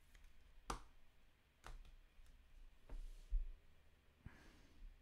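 Faint clicks and taps of a trading card and a clear rigid plastic card holder being handled, a few separate clicks about a second apart, with a low thump a little past three seconds.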